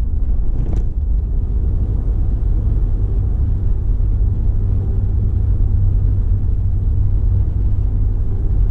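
Steady low rumble of a car driving on the road, its tyre and engine noise, with one short tick about a second in.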